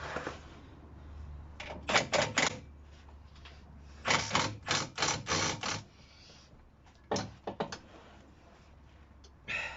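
Hand ratchet clicking in short bursts of rapid ticks while a suspension nut is tightened, with about four bursts and short pauses between strokes.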